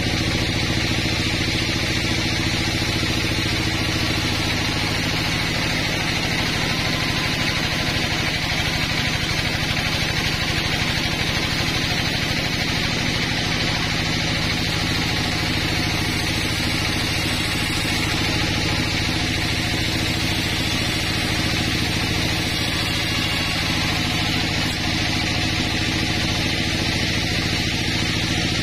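Band sawmill running steadily as its blade rips lengthwise through a pine log: a constant machine hum under a steady hiss of the saw in the wood.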